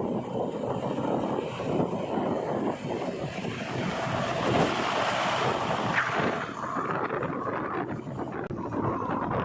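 JCB 3DX backhoe loader working, a continuous rough rumble and clatter mixed with wind noise on the microphone.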